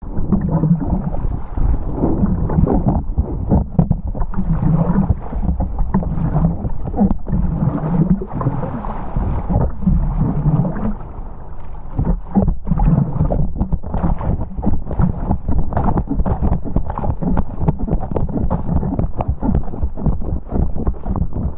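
Wind buffeting the microphone, mixed with rushing and splashing water, while riding a downwind hydrofoil board over the ocean. The noise is steady and rough, broken by frequent irregular gusts and splashes.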